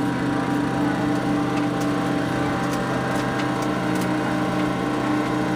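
Steady mechanical hum with several steady tones inside an MD-80 cockpit before its engines are started.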